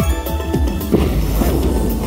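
Ultimate Fire Link Explosion slot machine playing its game music: an electronic melody over a steady bass, with falling pitch sweeps and a sharp hit about a second in.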